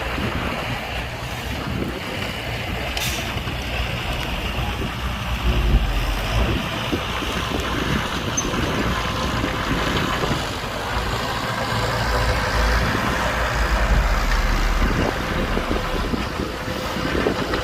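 Heavy diesel earthmoving machinery running steadily, with wind buffeting the microphone in swells. There is a short knock about three seconds in.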